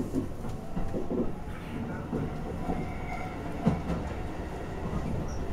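Shin-Keisei 8800 series electric train running, heard from inside the cab: a steady rumble of wheels on rails with clacks over the rail joints, and one sharper knock about three and a half seconds in.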